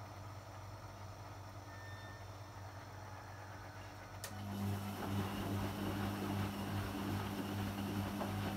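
Beko BKY 2317 B front-loading washing machine running its short 30-degree programme. A steady low hum plays, then a little over four seconds in a click is followed by a louder hum and rushing water for about five seconds.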